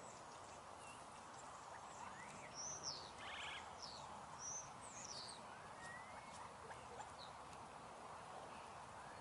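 Several short, high bird chirps and sweeps, with a brief buzzy trill about three seconds in, over a faint steady outdoor hiss.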